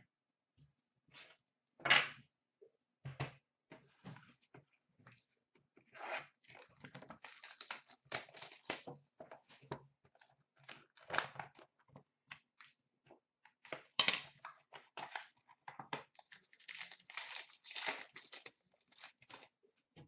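Packaging torn open and crinkled as a sealed box of hockey trading cards is unwrapped: an uneven run of tearing, rustling and crumpling, with sharp tears about two seconds in and again near the middle.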